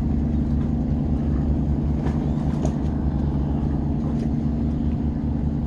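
A steady low engine hum, like a motor running at idle, with a few faint ticks about two and four seconds in.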